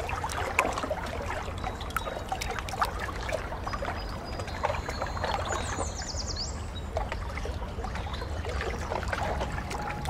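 Swimming-pool water lapping and trickling, a steady run of small irregular splashes and drips.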